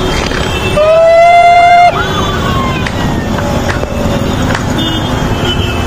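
A loud, horn- or siren-like tone held for about a second, rising slightly in pitch, over steady traffic noise, followed by a fainter tone sliding downward.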